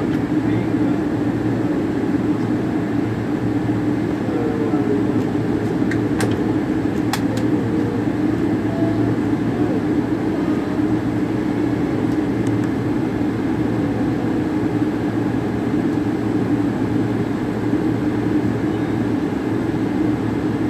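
Steady cabin drone inside an airliner in flight: engine and airflow noise holding one level, with two faint clicks about six and seven seconds in.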